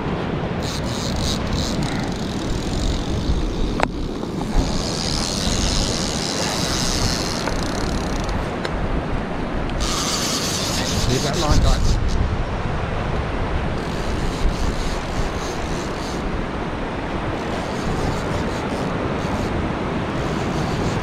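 Steady wind rumbling on the microphone over breaking surf, with two louder stretches of high hiss, about five and ten seconds in.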